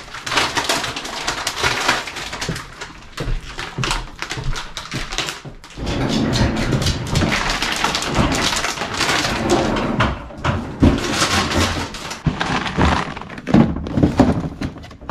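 Plastic grocery bags and food packaging rustling and crinkling as they are handled, with frequent knocks and thunks of boxes being set down and packed into a freezer drawer.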